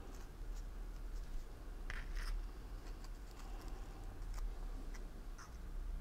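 Faint rustling and a few soft ticks as fingers handle folded satin-ribbon leaves, over a low steady hum.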